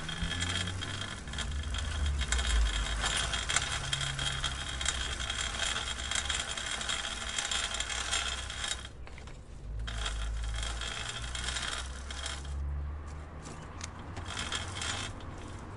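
Bicycle chain clicking rapidly and continuously over a low rumble. It breaks off briefly about nine seconds in, then returns and thins to scattered clicks near the end.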